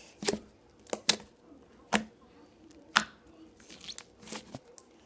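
Homemade clear-glue and baking-soda slime being poked with a finger, giving sharp crunching pops about once a second, with fainter ones near the end.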